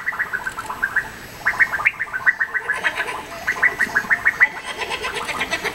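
A fast run of short, high-pitched squeaky cries, several a second, breaking off briefly about a second in and again about two and a half seconds in.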